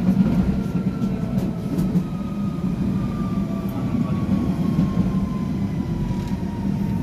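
London Underground 1992 Tube Stock train heard from inside the carriage as it pulls into a station: steady wheel-and-rail rumble with a motor whine falling slowly in pitch as the train slows.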